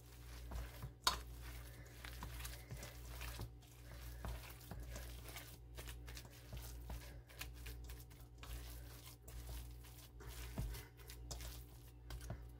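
Raw minced chicken being kneaded by hand with chopped onion and herbs in a stainless steel bowl: soft, irregular mixing noises and light taps against the bowl, with one sharper tap about a second in.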